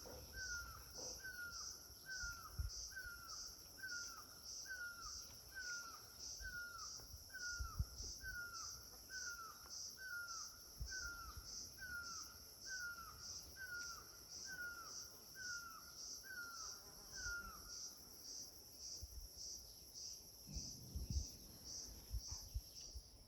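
Insects, likely crickets or cicadas, chirring steadily in a high pulsing drone of about two pulses a second. Over it a bird repeats a short falling call about once a second, stopping about three-quarters of the way through. There are scattered low thumps.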